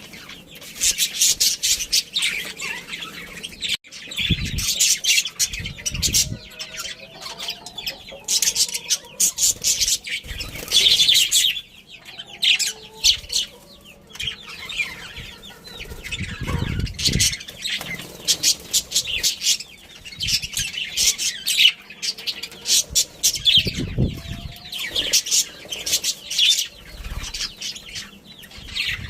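A group of budgerigars chirping and chattering nonstop in quick, overlapping calls, with a few low thumps here and there.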